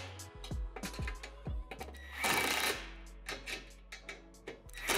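Cordless impact driver hammering bolts tight into a steel shed gutter-channel connector, in short rattling bursts: one about two seconds in and another near the end. Background music with a steady beat plays underneath.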